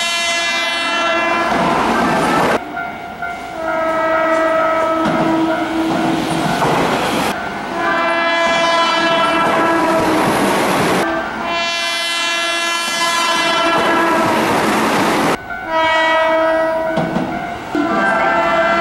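Keihan Railway electric trains sounding their horns: about four long horn blasts of several seconds each, one after another with short breaks, over the running noise and wheel clatter of a passing train.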